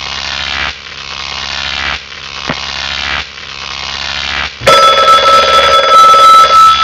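Instant-camera sound effects: four short buzzing, ringing pulses, each growing louder, then about four and a half seconds in, a sudden loud motor whir with a steady whine as the camera ejects a print.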